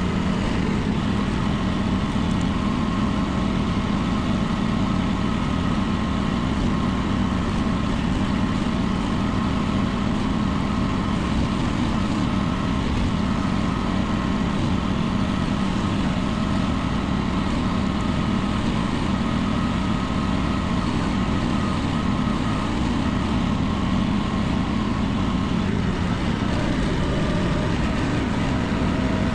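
Small mini excavator engine running steadily at an even speed, with no rise or fall in revs.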